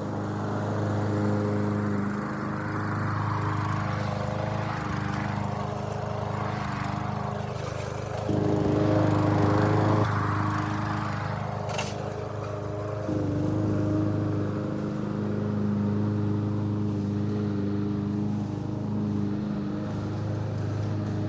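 Lawn mower engine running steadily, its tone and loudness shifting a few times.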